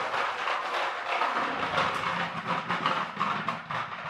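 Plastic toy tractor running under rubber-band power across a wooden parquet floor, its hard plastic wheels and axles rattling and clattering steadily as it rolls.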